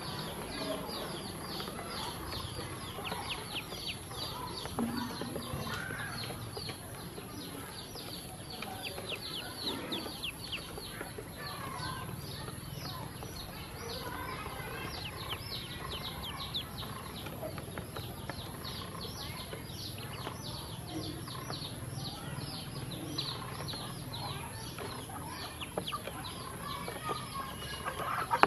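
A brood of yellow ducklings peeping constantly while feeding: a dense stream of short, high chirps that fall in pitch, several a second.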